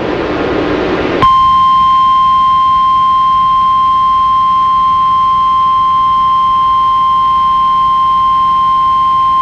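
Radio static hiss, then about a second in a steady single-pitch alert tone starts abruptly and holds at a constant level. This is the Emergency Alert System attention tone, the 1050 Hz NOAA Weather Radio warning alarm tone that precedes a severe thunderstorm warning, heard over faint static.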